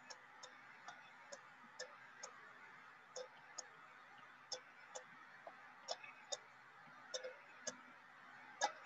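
Faint, irregular clicks of a stylus tapping a pen tablet or touchscreen during handwriting, about two a second and a little louder near the end, over a steady low hiss.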